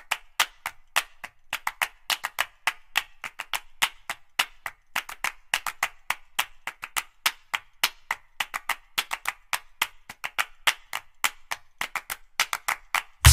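Background music in a sparse stretch without bass: a quick percussion rhythm of sharp clap-like clicks, about four or five a second.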